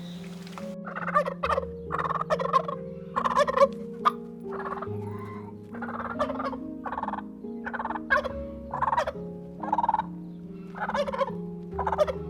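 Domestic fowl calling in a run of short, rough calls, about one a second, over soft background music.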